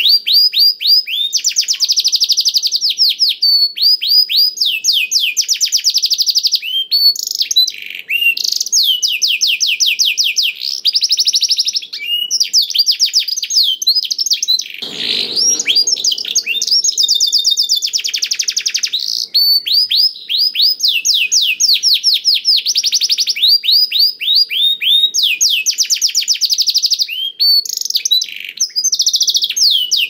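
Domestic canary singing a long, loud, nearly unbroken song of rapid trills, each a fast run of the same short note repeated, passing from one trill to the next with only brief gaps.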